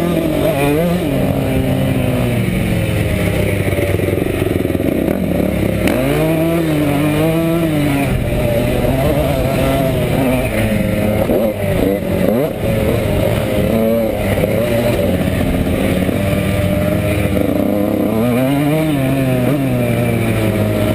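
Motocross dirt bike engine heard from on board, revving up and dropping back again and again as the rider accelerates, shifts and backs off over the track.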